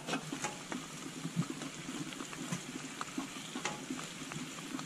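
Food sizzling in a frying pan, a steady hiss with scattered sharp pops and crackles.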